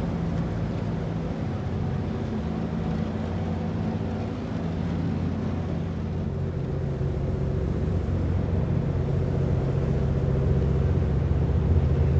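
Wajer 44 motor yacht's inboard engines running at low cruising speed: a steady low drone with several even pitched lines, growing a little louder toward the end.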